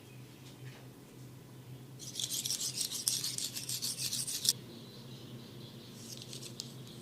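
Fast, scratchy rubbing strokes of a head massage. They are loud for about two and a half seconds starting about two seconds in, then come back fainter in a shorter run near the end.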